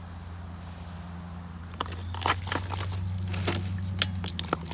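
Irregular clicks and knocks start about two seconds in, from hands unscrewing and handling the drain plug on a pool pump. A steady low hum runs underneath.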